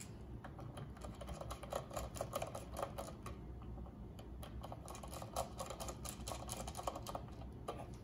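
Rapid light clicking and ticking of a small screwdriver and wires being worked into plastic screw-terminal blocks on an access control board, in two busy spells.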